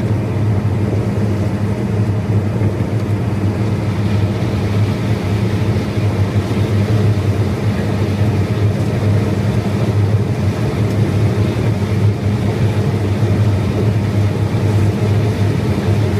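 Combine harvester running steadily under load while harvesting corn, a constant deep engine and machinery hum with no changes.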